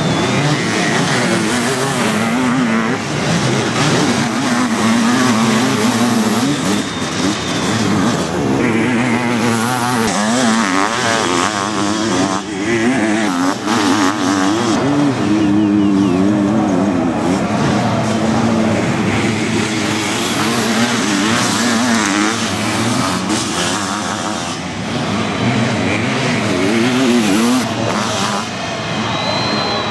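Sidecar motocross outfits racing, several engines at once, revving up and down in pitch as the riders open and close the throttle.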